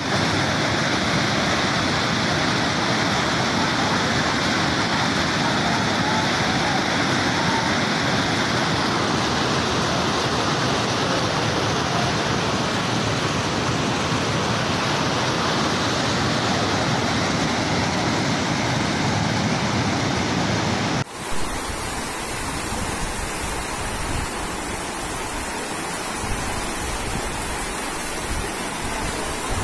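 Fast-flowing floodwater rushing in a torrent down a street, a steady, loud rush. About two-thirds of the way through it cuts abruptly to another recording of flowing floodwater, a little quieter and rougher.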